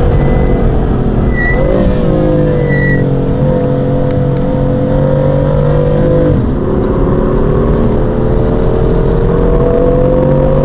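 BMW M4's twin-turbo straight-six engine pulling hard, heard from inside the cabin. About six and a half seconds in the revs drop sharply at an upshift, then climb steadily.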